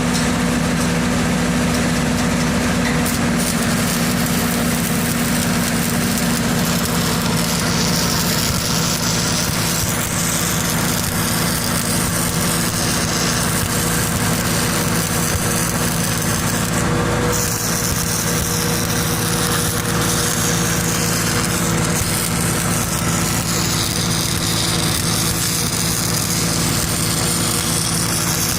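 Engine-driven welder running steadily under load while a 1/8-inch 7018 stick electrode burns with a steady crackling arc. The crackle drops out for a moment about halfway through.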